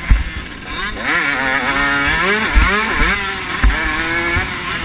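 KTM motocross bike's engine revving hard and dropping back over and over as it accelerates and shifts along the track. Several sharp thumps come from the bike hitting bumps, the loudest about two and a half seconds in.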